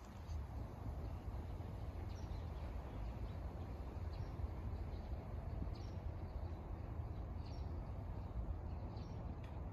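Outdoor ambience: a steady low rumble with faint, short bird chirps every second or two.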